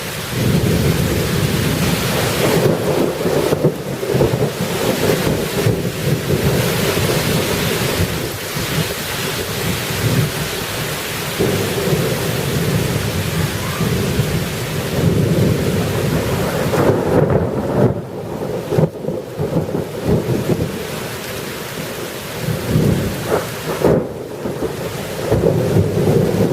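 Thunderstorm: rain falling steadily under long, rolling rumbles of thunder that swell and ease without a sharp crack.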